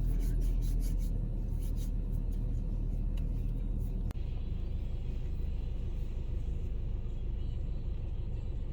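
A car on the move: a steady low rumble of engine and road noise, which drops out for an instant about four seconds in.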